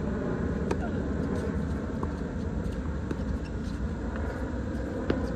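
Tennis balls struck by racquets during a doubles rally: a few sharp pops, the loudest about a second in and near the end, over a steady low rumble.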